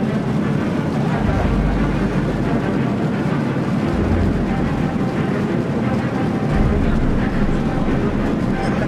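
Airliner jet engines at takeoff power heard from inside the passenger cabin during the takeoff roll: a steady, loud noise with a low rumble.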